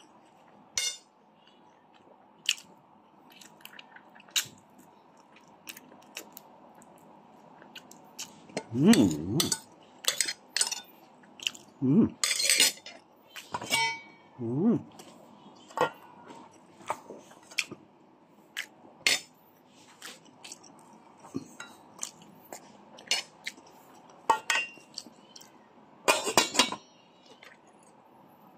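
Cutlery clinking against a plate during a meal, in scattered sharp clicks that come thickest around twelve and twenty-six seconds in. A few short voice sounds come between them, the loudest about nine seconds in.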